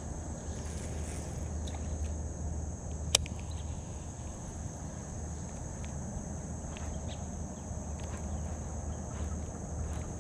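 Steady high-pitched drone of insects, with a low steady rumble underneath. A single sharp click sounds about three seconds in.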